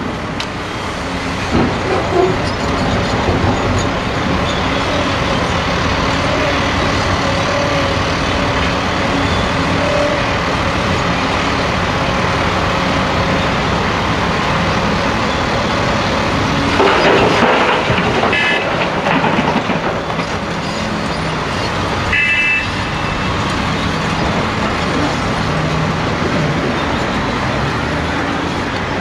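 A Caterpillar 385C excavator's diesel engine runs steadily under load as it digs and swings. A little past halfway comes a loud rush and crash of rock dumped into the steel bed of a Cat 773E dump truck, followed within a few seconds by two short horn toots.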